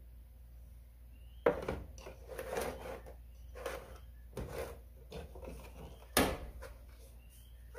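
Metal mini tart pans being set down and shifted on a metal baking sheet: a sharp knock about one and a half seconds in, smaller clinks and scrapes after it, and a louder knock about six seconds in.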